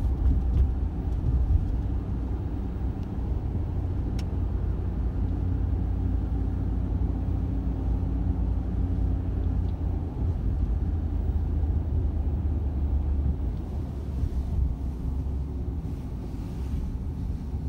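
Road noise heard from inside a car's cabin while driving at highway speed: a steady low rumble of tyres and engine.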